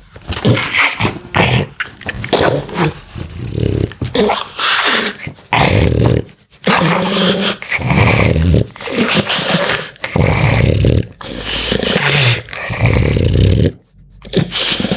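Dog snoring in its sleep: a steady run of rasping, fluttering breaths in and out, each about a second long, with short pauses about six and a half seconds in and near the end.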